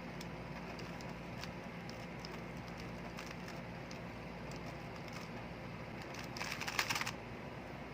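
A Rubik's cube being turned through an OLL algorithm: faint plastic clicks of the layers turning over a steady hiss, with a quick flurry of clicks about six and a half seconds in.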